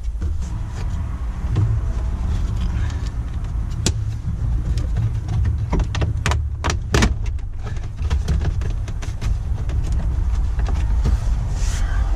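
Plastic dashboard trim being worked loose by hand: sharp clicks and snaps, one about four seconds in and a quick cluster of about five a couple of seconds later, over a steady low rumble.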